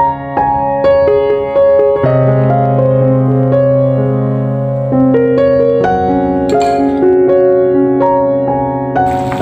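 Background piano music: a melody of separate notes over a held low note.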